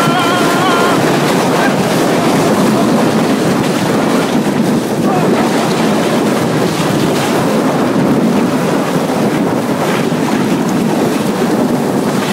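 Steady loud rush of wind buffeting the microphone and water spraying past a flat-bottom boat being towed at speed. A brief high whoop sounds right at the start.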